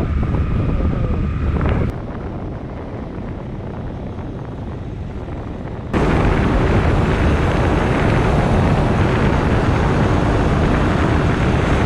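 Wind rushing over the microphone with road and engine noise from a moving vehicle. It drops a little about two seconds in and jumps abruptly louder about six seconds in.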